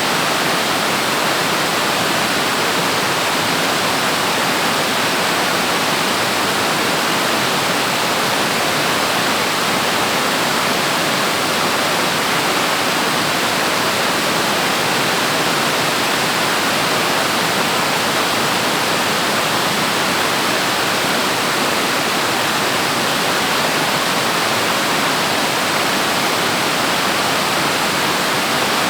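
Waterfall: falling water rushing steadily and loudly.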